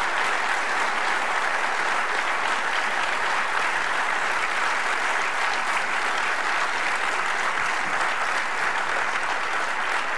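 Audience applauding steadily, an unbroken wash of clapping.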